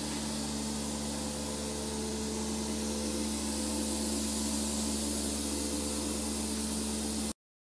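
H. Glass VSM 300 vacuum mixer running: a steady electric motor hum with an even hiss, which cuts off suddenly near the end.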